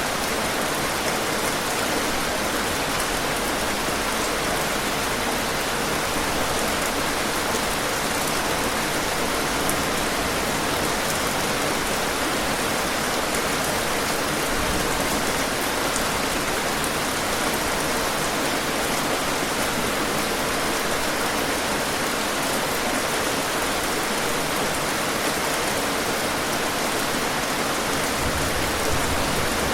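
Steady rain falling on a hard surface, dense, even patter of drops with no let-up.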